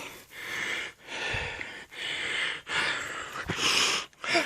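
Heavy breathing of a hiker out of breath from a steep climb: loud breaths in and out, roughly one a second.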